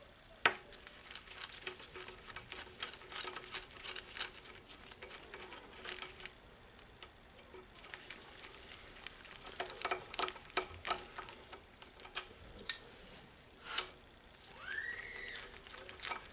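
Small metallic clicks and ticks of hand tools at work on a ratchet, a tiny Torx T8 driver on its screws, coming in irregular clusters with a few sharper snaps. Near the end comes one short squeak that rises and falls.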